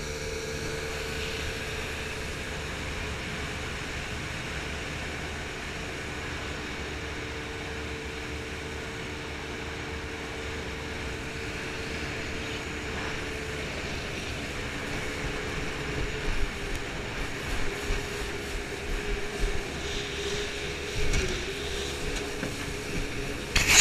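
Jet boat running at speed, its engine a steady drone with the pitch stepping down slightly about halfway through. In the second half, irregular thumps and splashing come in as the hull runs through choppy, shallow riffle water.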